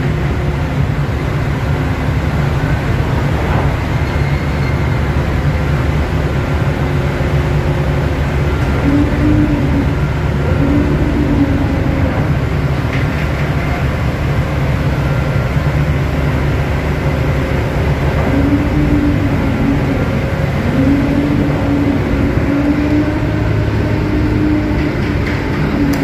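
Steady low mechanical rumble of a container ship's machinery on deck. A faint wavering whine comes and goes about nine seconds in and again from about eighteen seconds.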